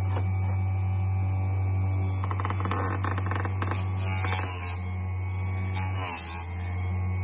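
Electric chainsaw-chain sharpener's motor humming steadily while the spinning grinding wheel is brought down onto the cutter teeth: a brief grinding hiss about four seconds in and again around six seconds, each pass grinding back one tooth. A patch of light clicking comes between the passes, two to three seconds in.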